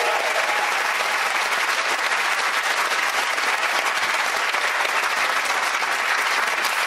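Studio audience applauding steadily, a dense patter of many hands clapping at once.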